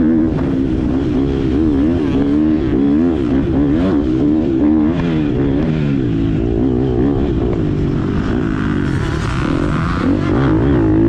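GasGas MC 250 motocross bike engine revving hard, its pitch rising and falling over and over as the throttle is worked on and off.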